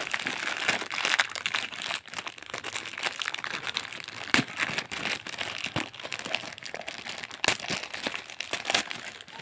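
Plastic wrapping and a kraft-paper mailer crinkling and rustling as hands unwrap a parcel, with many sharp crackles.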